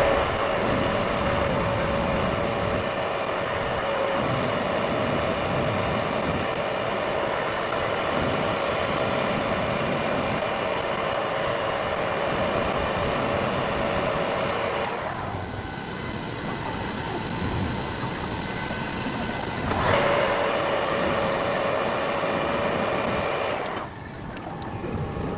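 Metal lathe running, turning down a shaft that has been built up with MIG weld to make an interference fit for its bearings; a steady machine tone with cutting noise over it. The sound thins out about 15 seconds in and comes back strongly about 20 seconds in.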